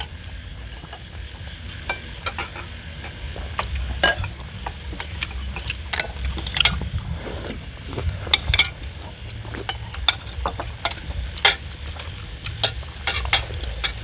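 Spoons and shellfish shells clinking against ceramic bowls and plates as two people eat: scattered, irregular sharp clicks over a steady low hum.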